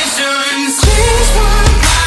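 Background pop-rock song with a heavy beat and sung vocals; the bass drops out briefly at the start and comes back in under a second.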